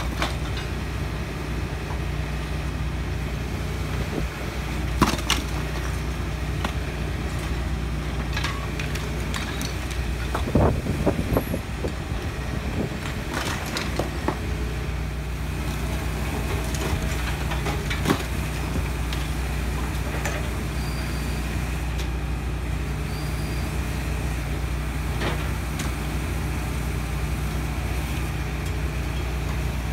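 Hitachi Zaxis 210 tracked excavator's diesel engine running steadily while its demolition grab tears apart a building's roof, with scattered cracks and crashes of breaking timber and falling debris, the busiest stretch about ten to twelve seconds in.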